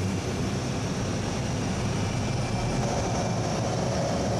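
Turboprop aircraft in flight: a steady engine drone with a low hum under the rush of air, as heard from on board an aircraft flying in close formation.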